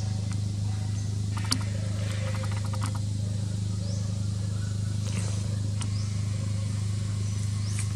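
A steady low hum that never changes, with a few faint short rising chirps and an odd click or brief rattle over it.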